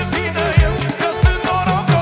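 Manele band music with no vocal line: a wavering lead melody over a steady beat of deep kick drums that drop in pitch.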